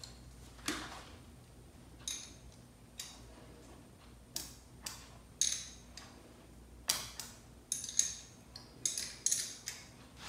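Irregular light metallic clicks and taps, a dozen or so, as battery cable clips and wire ends are handled at the battery terminals. No engine is cranking or running.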